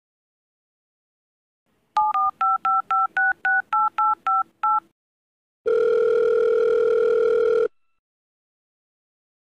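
After a pause, a phone keypad dials a number: about a dozen quick touch-tone beeps, each a pair of tones. Then a single steady ringing tone on the line for about two seconds, ending abruptly.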